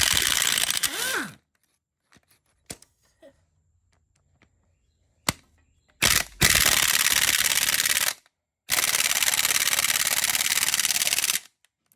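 Impact wrench hammering on the cylinder head bolts of a 350 small-block Chevy, breaking them loose, in three bursts: a short one at the start, then two longer ones of two to three seconds each near the middle and end.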